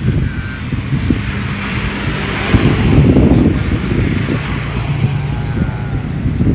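Road traffic on a bridge, a vehicle passing by and swelling loudest about two and a half seconds in, with wind buffeting the microphone.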